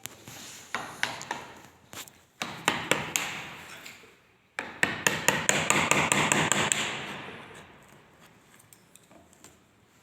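Quick series of sharp knocks and taps in three bursts, the last and densest about five to seven seconds in, then dying away to a few faint ticks.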